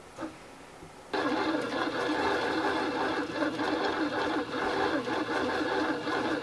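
Benheim bread maker's kneading motor running steadily, its paddle working a ball of dough in the pan. The sound starts suddenly about a second in.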